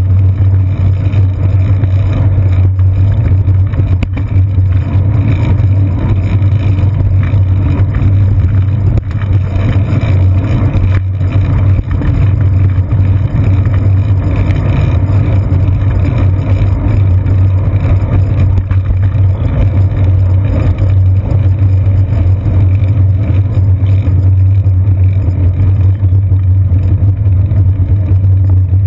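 Steady low rumble of wind buffeting and road vibration on a seat-post-mounted GoPro Hero 2 as the bicycle rides over city pavement, with a faint constant high tone above it.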